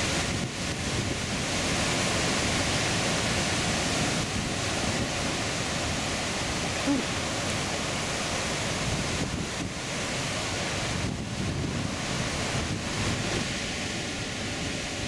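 Heavy storm surf breaking over a lava-rock shoreline, a steady rushing noise of waves and whitewater.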